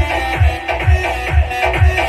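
Electronic dance music with a heavy kick drum a little over twice a second and a plucked, guitar-like melody, played back through a power amplifier under test.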